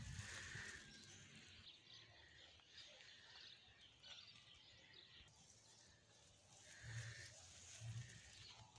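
Near silence: faint outdoor ambience with a few faint, distant animal calls, one near the start and another about seven seconds in.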